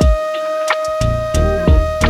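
Background music: a held synth-like melody line over a steady beat with deep bass hits.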